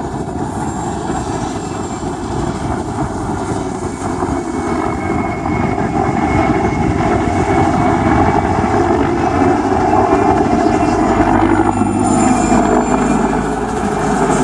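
Mil Mi-2 helicopter in flight: its twin turboshaft engines and rotor running with a steady rapid chop, growing louder from about six seconds in.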